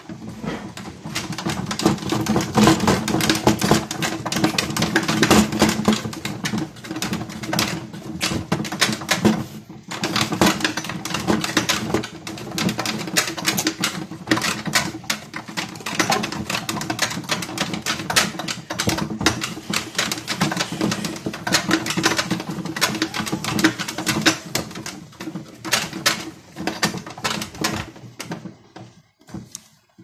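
Toy Miele W1 washing machine turning its drum during a rinse: a steady motor hum under a dense, rapid rattle of clicks. It pauses briefly about a third of the way in and stops just before the end.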